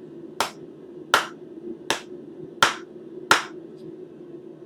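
Rawhide mallet striking a curved, twisted quarter-inch square steel bar to straighten it: five dull smacks, evenly spaced about three quarters of a second apart, with no ringing.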